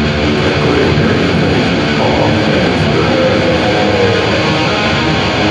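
Death-doom metal: loud, dense distorted electric guitars playing on steadily.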